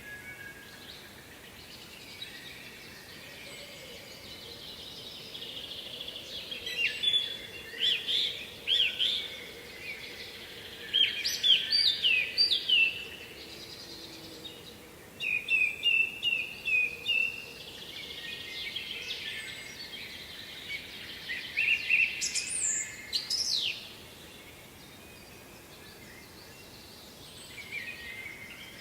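Songbirds singing: a run of short, high song phrases separated by pauses of a second or more, one phrase a fast run of repeated notes, over a faint steady background noise.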